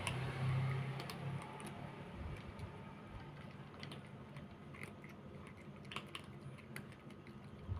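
Cats eating, crunching their food in a scatter of small, irregular clicks. A low rumble fades out in the first second and a half.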